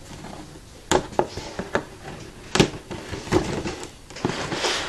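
A large cardboard toy box being handled: several sharp knocks and clicks spread about a second apart, with rubbing and rustling of cardboard between them, the rustling strongest near the end.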